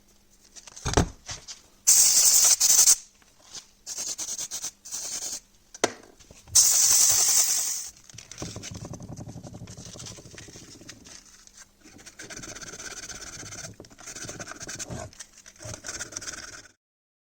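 Hand-cleaning of a marine starter motor's parts. A knock about a second in, two loud hissing bursts of about a second each, then a long stretch of scraping and rubbing that stops suddenly near the end.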